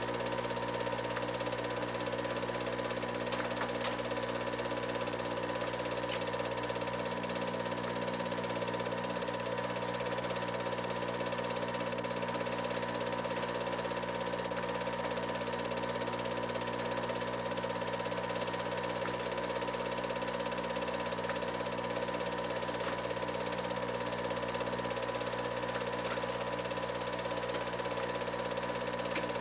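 Home-movie film projector running steadily: a constant motor hum with the fast, even clatter of its film-advance mechanism.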